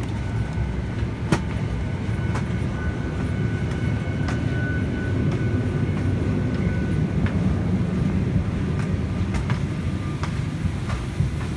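Steady low rumble of cabin air in a parked Boeing 737-800, with scattered light knocks and clicks as someone walks up the aisle.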